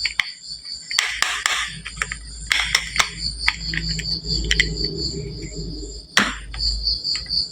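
Glass marbles clacking and rolling on a wooden marble run: clusters of sharp clicks about a second in and again near three seconds, a low rolling rumble from about four seconds, and one hard knock about six seconds in. Under it runs a steady, evenly pulsing chirp of crickets.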